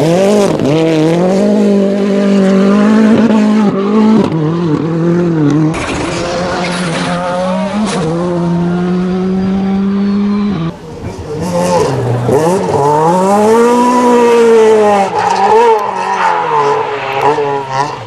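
Rally car engines at full throttle on gravel stages, revs climbing and dropping through gear changes as the cars pass one after another. In the middle one engine holds a steady high note for a few seconds, and near the end the revs dip and climb several times in quick succession.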